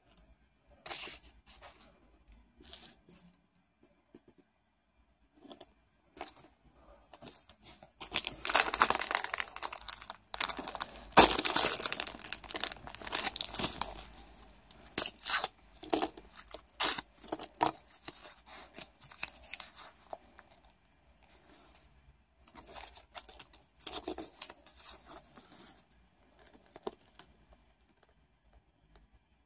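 Fortune cookies being opened by hand: crinkling, tearing and crisp cracking in irregular bursts, busiest in the middle, with a few sharp snaps.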